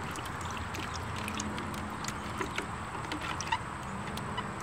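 A hand squishing and stirring wet soil in a plastic bucket: a steady sloshing with many small, irregular wet clicks.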